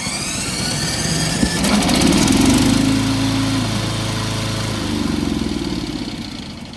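Remote-control lawn mower's engine, just started from the remote, running and building up over the first couple of seconds. It then holds steady and dies down toward the end.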